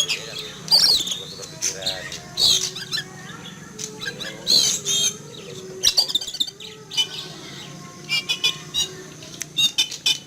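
Oriental magpie-robin (kacer) calling loudly and agitatedly: squawks, whistled phrases and quick runs of repeated notes, which the owner takes for alarm at an eagle flying overhead.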